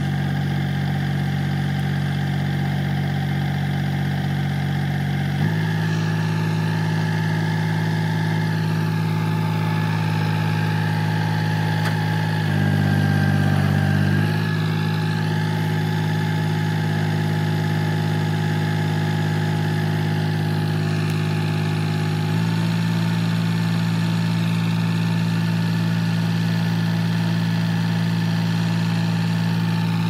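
Powertrac Euro 439 tractor's diesel engine running steadily while it drives the hydraulic tipper. The engine speed steps up about five seconds in, rises louder for a second or two around the middle, and steps up again about two-thirds of the way through.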